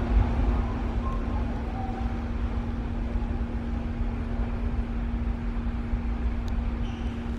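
Underground U-Bahn station platform ambience: a steady low rumble with a constant hum under it, the rumble easing a little in the first second.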